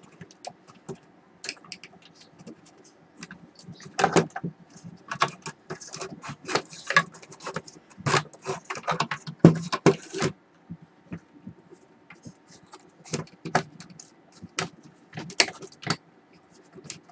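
Wire connectors being pulled by hand off a UPS circuit board: irregular clicks, scrapes and rattles of the plastic plugs and wires against the unit's chassis.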